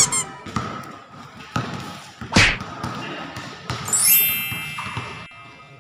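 Basketball bouncing on a concrete court: several separate sharp bounces about a second apart as a player dribbles.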